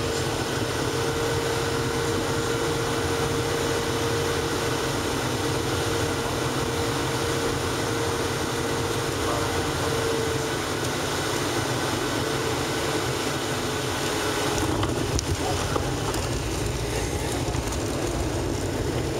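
Cabin noise of a Boeing 737-700 on short final: the steady rush of its CFM56 engines and the airflow, with a steady whine through the first ten seconds. About fifteen seconds in the jet touches down, with a few knocks and a sudden rise in low rumble as the wheels roll on the runway.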